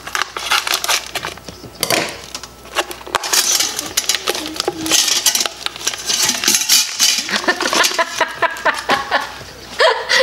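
Vacuum-sealed plastic meat packaging being cut with kitchen scissors and crinkled, with sharp clicks and clinks of metal against a stainless steel pressure-cooker pot and wire trivet as the meat and juices are tipped in.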